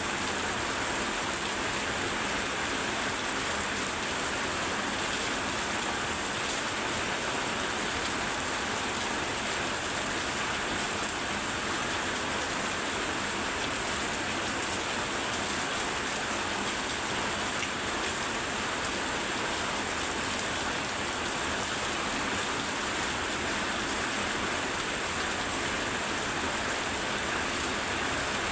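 Very heavy rain falling steadily, an even hiss without a break.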